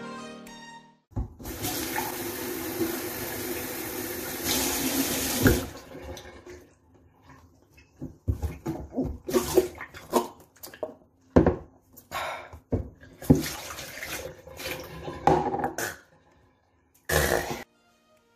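Kitchen tap running steadily for about four seconds, filling a mug, then a string of irregular knocks and clinks as the mug is handled, with one more short clatter near the end.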